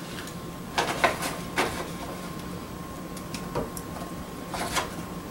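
Paper wrapping of salt pork rustling and crinkling in several short bursts as it is opened.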